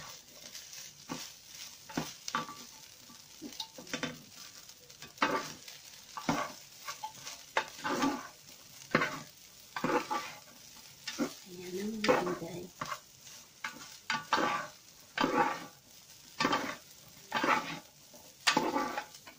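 A utensil stirring and scraping through fried rice in a pan, in short strokes about once a second, with a light sizzle between them.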